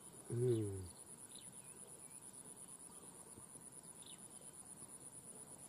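Insects, cricket-like, keeping up a faint, steady, high-pitched trill with a rapid pulse. A man's voice makes a brief sound about half a second in, and a few faint chirps come and go.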